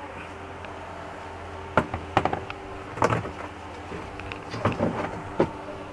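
Scattered light knocks and clicks of a plastic instrument cluster and tools being handled and set down on a workbench, over a steady low hum.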